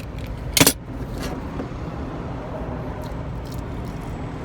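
A short, sharp scrape or knock about half a second in, from work cutting out old caulking, over a steady low outdoor rumble.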